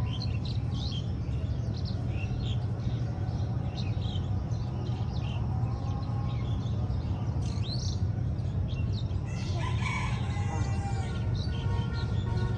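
Small birds chirping on and off, with a rooster crowing once about nine seconds in, over a steady low hum.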